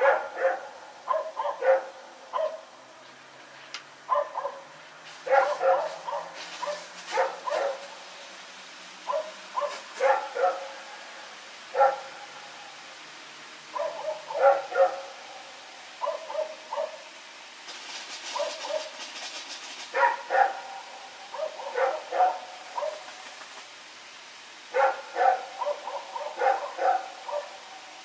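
A Belgian Malinois barking repeatedly, in bouts of several quick barks separated by short pauses.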